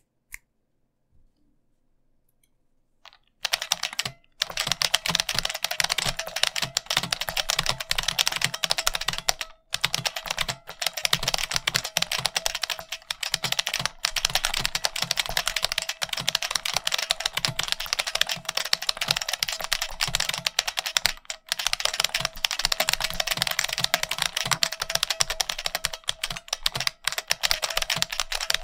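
IBM Model F keyboard's buckling-spring switches under fast continuous typing, starting about three seconds in after a couple of single keystrokes. Each keystroke gives a sharp click with the board's metallic spring ping.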